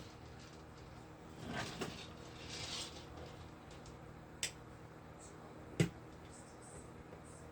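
Faint handling sounds of small craft materials: soft rustling twice, then two sharp little clicks a second and a half apart.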